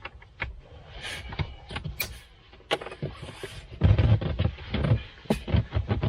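A child car seat being pushed and settled into a minivan seat: a run of clicks, knocks and rustling of plastic and fabric, with the heaviest thumps about four to five seconds in.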